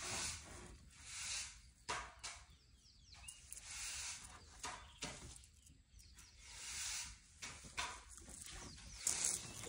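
Baby African elephant snuffling and blowing through its trunk in repeated breathy swells while rummaging in leafy branches, with a few sharp crackles of leaves and twigs.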